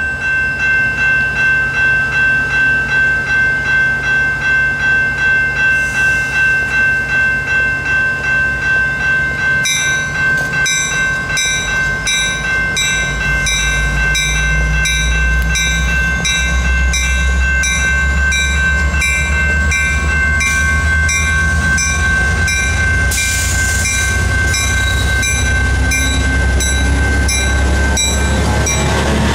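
A level crossing warning bell rings steadily while a GMD F59PH diesel locomotive hauling a commuter train approaches. The locomotive's low engine rumble builds from about halfway through, and the train is passing close by near the end.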